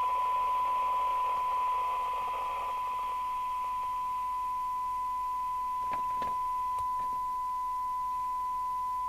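Steady 1 kHz test tone from an FM CB radio's receiver, with the hiss around it dying away over the first couple of seconds as the signal is brought up during a 12 dB SINAD sensitivity check. A few light clicks come about six to seven seconds in.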